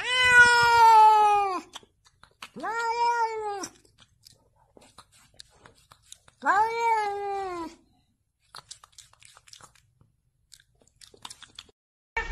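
A cat meowing three times, long drawn-out meows that each sink in pitch at the end, with a few faint clicks after the third.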